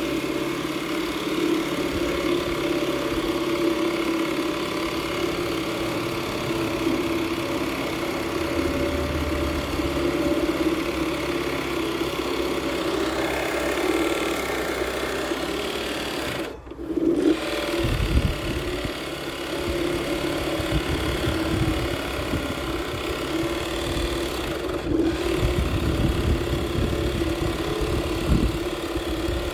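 Benchtop pillar drill running with a steady motor hum while boring into a white board. The sound breaks off briefly about two-thirds of the way through, and irregular low rumbling comes in after that.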